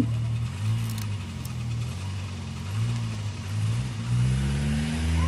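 Background music: a deep synth bass drone with slow, sliding pitch bends that swell near the end.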